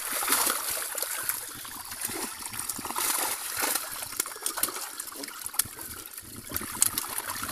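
A mass of live, freshly netted fish thrashing in shallow water inside a plastic-lined net: a continuous splashing, peppered with many small slaps and spatters.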